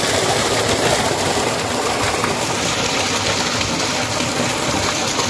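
Irrigation pump's water gushing out of a large outlet pipe in a steady, loud rush.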